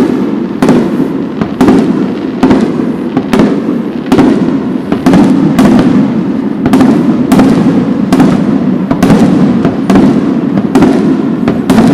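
Fireworks display, shells bursting one after another about twice a second over a continuous din of crackling and booming.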